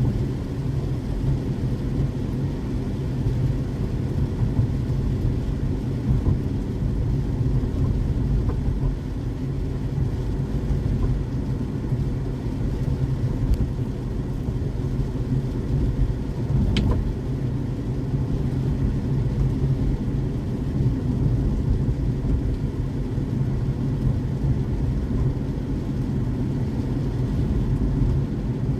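Steady low rumble of a car driving: engine and road noise with no change in pace. A single sharp click sounds a little past halfway.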